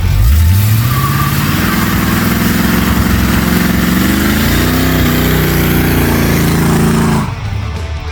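Chevy 350 V8 engine revving up, its pitch climbing steadily for about seven seconds before cutting off abruptly.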